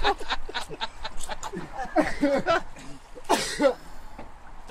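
Indistinct voices, with a short harsh cough about three and a half seconds in.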